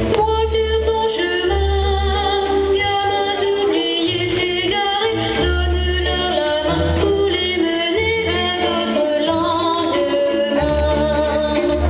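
Music with a high singing voice wavering in vibrato over deep, held bass notes.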